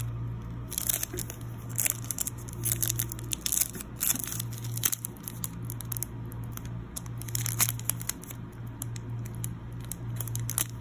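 Foil wrapper of a Pokémon booster pack crinkling in short, irregular bursts as it is handled and turned over in the hands.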